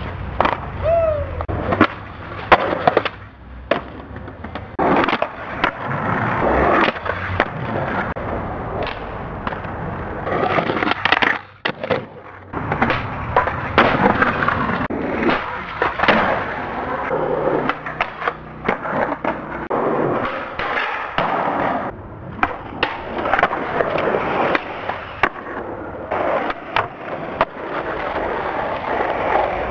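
Skateboards rolling on pavement, with many sharp clacks as tails pop and wheels slap down on landings.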